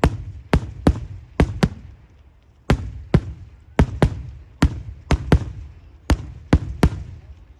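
Daytime fireworks: an irregular, rapid series of loud bangs from bursting firework shells, about two a second. Each bang trails off in a low rumble.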